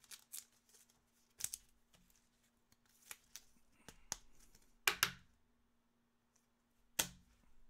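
Trading cards being handled: a string of short clicks and snaps as cards are flipped and slid against one another, with louder snaps at about one and a half, five and seven seconds in. A faint steady hum runs underneath.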